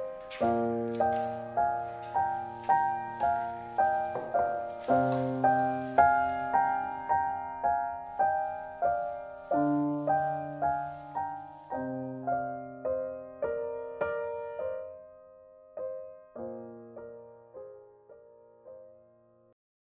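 Solo piano music: notes struck about twice a second over held low notes, growing sparser and quieter and stopping near the end.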